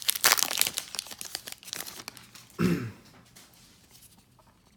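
Wrapper of a baseball card pack being torn open and crinkled for about the first two seconds. A short vocal sound follows about two and a half seconds in.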